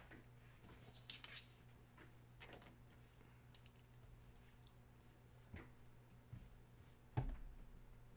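Near silence, broken by a few faint clicks and taps from small objects being handled on a desk. The sharpest click comes about seven seconds in.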